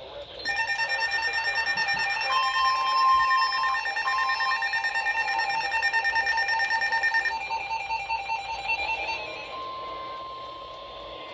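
Electronic emergency alert tones: a loud, rapid beeping that alternates between two pitches, with a steady single tone cutting in about two seconds in and left sounding alone near the end.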